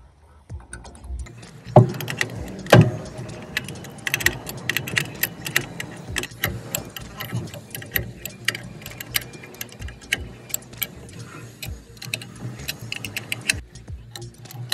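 Adjustable wrench clicking and clinking on a nut at a truck's air brake chamber, with two sharper metal knocks about two and three seconds in, then a steady run of small clicks.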